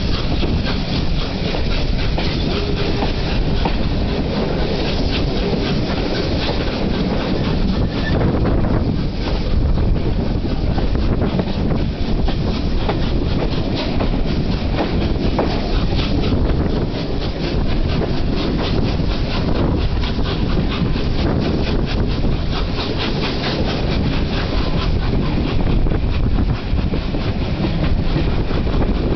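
Three-cylinder A1 Pacific steam locomotive 60163 Tornado working a twelve-coach train under acceleration, heard from the third carriage back: a fast, steady run of exhaust beats mixed with the coaches' wheels clicking over the rail joints, with some wind noise.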